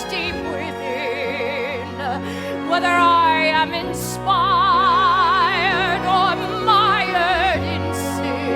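Broadway show-tune ballad: a singer holds long notes with wide vibrato over a sustained orchestral accompaniment.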